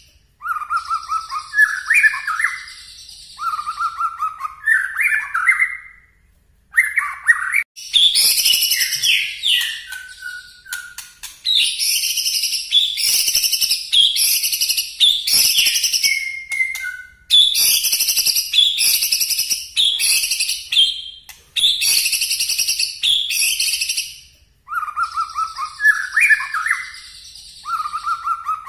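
Caged white-rumped shama singing loud, rapid 'nembak' song: short rising whistled phrases at the start and near the end, and in between a long stretch of fast runs of high, sharp repeated notes broken by brief pauses.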